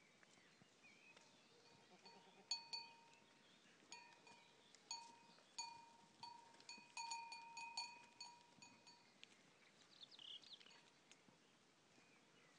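A small metal livestock bell clinking irregularly, about a dozen light strikes that come closer together in the middle, each ringing briefly at one steady pitch. Faint overall.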